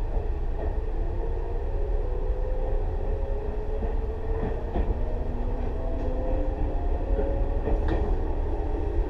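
Tobu 6050 series resistance-controlled train with TM-63 traction motors, running on the rails. The motor whine rises slowly in pitch as the train gathers speed, over a steady rumble from below, with a few clicks from the wheels.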